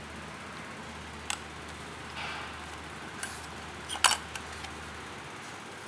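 A few light clicks and taps from a piston ring being handled up close to a magnifying lens, the loudest cluster about four seconds in, with a soft rustle of handling a little after two seconds, over a steady low hum.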